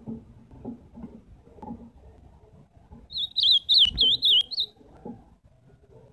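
Caged male ultramarine grosbeak (azulão) singing one short warbled phrase of about six rising-and-falling notes, about three seconds in and lasting a second and a half. Soft knocks come before and after it as the bird hops between the wooden cage perches.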